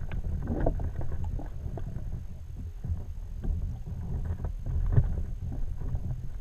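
Underwater sound picked up through a GoPro's sealed waterproof housing submerged in canal water: a muffled low rumble with scattered clicks and knocks, one sharper knock about five seconds in.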